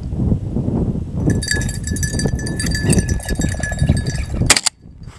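A dog's bell jingling steadily from about a second in, over a low rumble, then a single loud shotgun shot near the end at a flushed bird.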